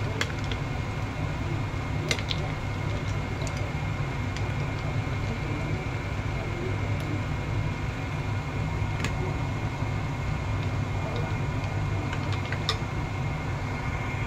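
A steady low mechanical hum, like a fan or appliance running, with a few light clinks of a metal spoon against a glass bowl of iced fruit drink as it is stirred.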